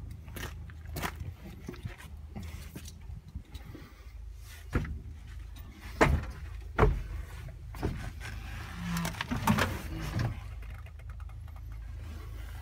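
Knocks and clunks from someone climbing into a Sumitomo SH300-5 excavator's cab and handling it, over a steady low rumble. The loudest knocks come around the middle.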